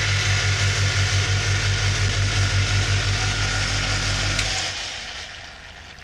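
Refrigerator compressor, switched on by the thermostat, running with a loud, steady hum and a fast throb. About four and a half seconds in it stops and the hum dies away.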